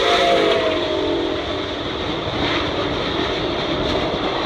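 Nickel Plate Road 765, a 2-8-4 Berkshire steam locomotive, passing with its whistle sounding over the running noise of the train. The whistle's chord sags in pitch and fades about a second in, leaving the steady rumble of the locomotive and cars.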